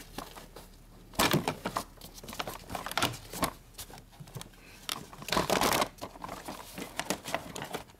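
Engine cover of a 2011 VW Jetta being pulled off by hand under the hood: scattered knocks, clicks and short rustling scrapes in irregular bursts, the loudest about a second in and again around five and a half seconds.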